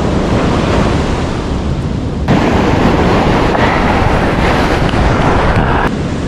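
Ocean surf washing in, with wind buffeting the microphone. A louder rush of noise comes in suddenly about two seconds in and cuts off near the end.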